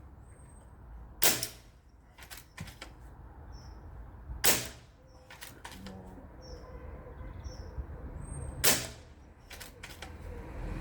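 Three shots from a Hatsan Flash PCP air rifle, about three to four seconds apart, each followed within a second by a few lighter clicks. Faint bird chirps in the background.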